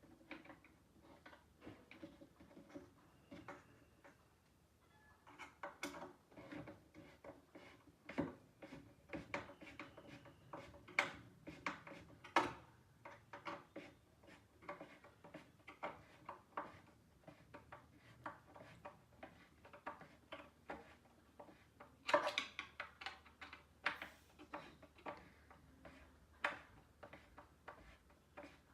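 Irregular small clicks, taps and knocks of metal fittings and hand tools against engineered-wood panels during flat-pack furniture assembly, with a louder cluster of knocks about three quarters of the way through.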